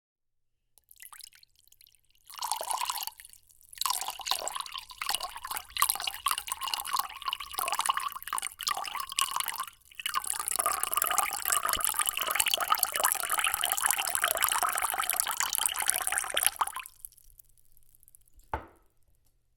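Water poured into a glass in several separate pours: a faint trickle, a short pour, a broken, uneven stream, then a longer steady stream that stops suddenly. One last small drip near the end.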